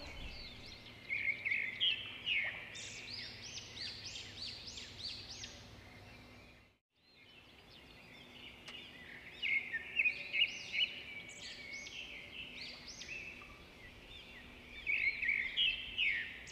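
Small birds chirping and twittering in dense, overlapping bursts of short high calls. They break off for a moment about seven seconds in, then resume.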